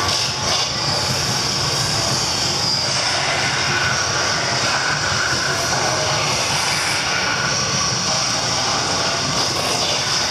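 Steady, dense droning rush of sound with a faint high whine on top and no separate events.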